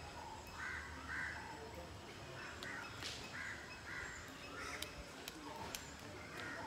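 Crows cawing: a series of short, harsh caws at irregular intervals, with a few faint clicks in between.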